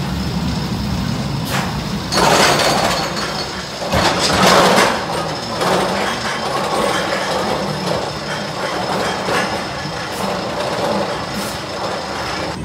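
Roller coaster train being hauled up its chain lift hill: steady mechanical running with a faint high whine and scattered clicks. Two louder rushes of noise break in, about two seconds and four seconds in.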